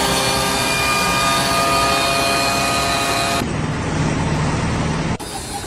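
Loud motor-vehicle or machinery engine noise, steady with a few held tones over it. It changes abruptly twice, about three and a half seconds in and again near the end.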